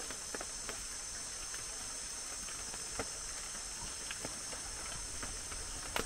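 Rainforest ambience: a steady high-pitched insect drone, with a few faint scattered clicks.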